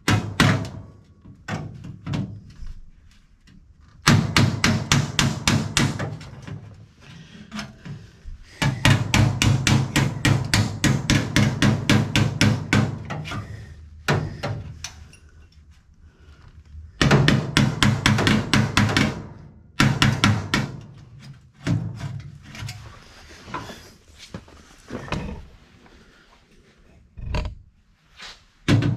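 Hammer striking welded sheet steel against a backing bar held behind the seam, knocking the weld tacks flush. The blows come in fast runs of several a second, each sharp and metallic, with short pauses between runs.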